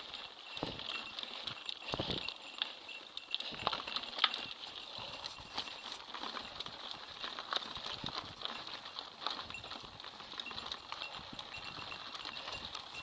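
Mountain bike clattering over a rocky dirt trail, picked up by a camera mounted on the bike: a dense, irregular run of knocks and rattles from the tyres hitting stones and the frame jolting, with one louder knock about four seconds in.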